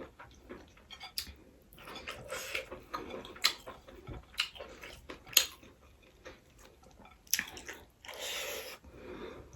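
Close-up eating sounds of someone chewing fried rice with sausage, mushroom and egg: wet chewing with a scatter of sharp mouth clicks, and a longer noisy sound about eight seconds in.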